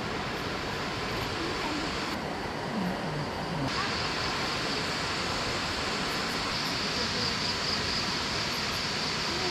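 Steady rush of flowing river water with a high, even insect drone over it, the drone growing stronger about four seconds in.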